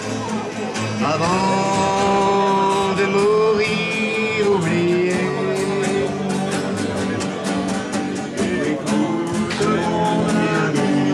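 Campfire singalong: voices singing long held notes over a strummed guitar keeping a steady rhythm.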